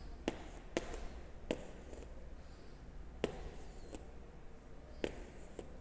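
Faint, sharp taps of a stylus on a tablet as digits are handwritten, about six at uneven intervals, over a steady low electrical hum.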